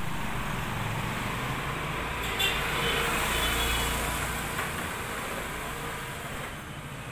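A motor scooter's engine passing close by, its sound swelling about three seconds in and then fading as it moves away.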